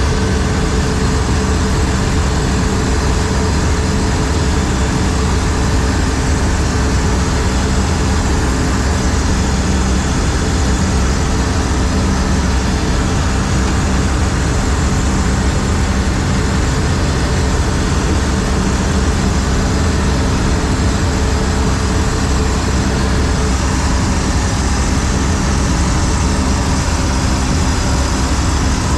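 John Deere 4400 combine running with its threshing cylinder turning: a steady, loud machine drone with a few held tones over it.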